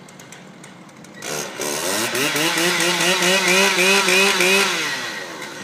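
Stihl 088 two-stroke chainsaw idling, then revved up about a second in and held near full throttle for about four seconds, its pitch wavering, before dropping back to idle near the end.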